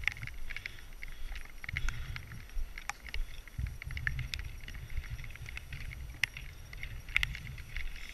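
Wind buffeting an action camera's microphone, an uneven low rumble that comes and goes, with scattered light clicks and taps throughout.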